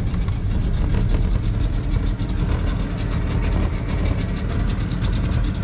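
Small aluminium boat's engine running steadily with the boat under way on the river.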